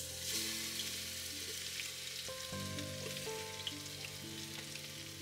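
Chopped ingredients sizzling in hot oil in a pot as a tadka (tempering) is fried. The sizzle starts as they are tipped in and runs on steadily, with soft background music.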